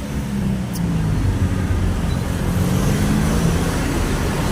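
Road traffic: several vehicle engines running and passing, with tyre and road noise, growing louder about a second in.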